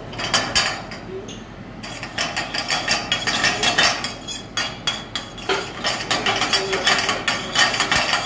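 Metal ladle scraping and clattering rapidly against a steel frying pan, stirring chopped garlic in hot oil. A short burst about half a second in, then near-continuous stirring from about two seconds in.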